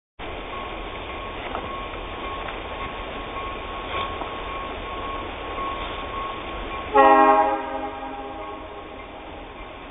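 Freight train locomotive horn giving one short blast about seven seconds in, over a steady low rumble.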